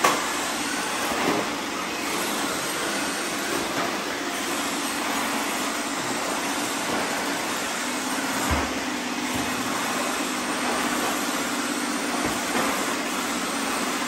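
Several robot vacuums running at once while sweeping confetti off a tile floor: a steady whir of motors and brushes, with a few light knocks, the loudest at the very start and a low thump about halfway through.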